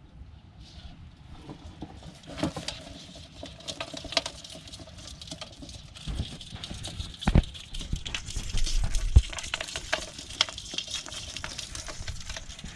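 Small fish and water being shaken out of a wet mesh net into an aluminium bowl, with the fish flipping and tapping on the metal in a quick, irregular patter of clicks that starts about two seconds in. A few heavier knocks come midway.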